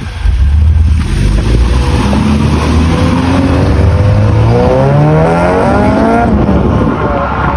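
Honda Integra Type R (DC2) 1.8-litre VTEC four-cylinder accelerating hard, its note climbing steadily in pitch for several seconds, then dropping at a gear change about six seconds in.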